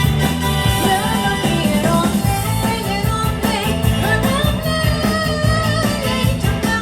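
Live band playing a Khmer twist song, a woman singing over guitar and a steady drum beat.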